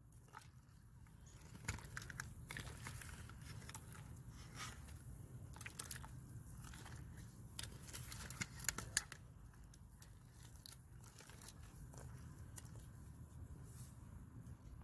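Wooden paddle stirring a crawfish boil in a large aluminium pot: scattered light knocks and scrapes over a low steady rumble.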